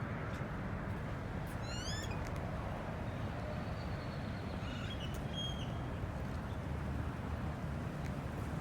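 A bird calling: a quick run of short rising notes about two seconds in and a few fainter high notes a couple of seconds later, over a steady low outdoor rumble.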